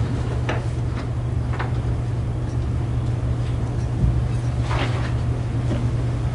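Steady low hum in the courtroom audio feed, with a few faint clicks and a soft rustle.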